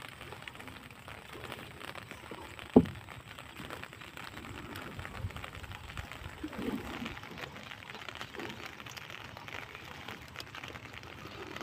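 Wooden boat pushed through thick water hyacinth: a steady rustle and patter of leaves and water along the hull, with one sharp knock about three seconds in.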